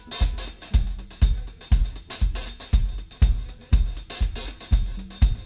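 Background music: a drum-kit beat with a kick drum about twice a second and hi-hats ticking between.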